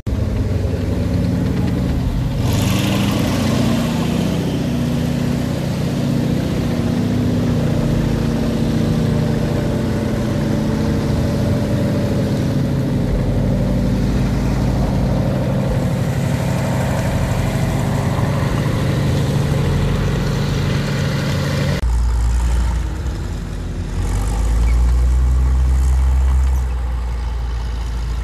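WWII M4 Sherman tank engine running with a steady, many-toned drone, growing louder and rougher about two seconds in. After an abrupt cut about two-thirds through, a deep low rumble from a tracked WWII artillery tractor driving past.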